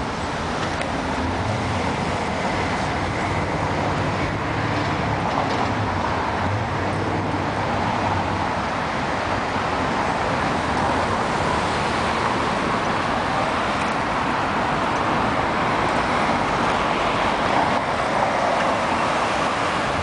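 City street traffic: cars driving past at an intersection, a steady wash of road noise, with a low engine hum from a passing vehicle through the first half.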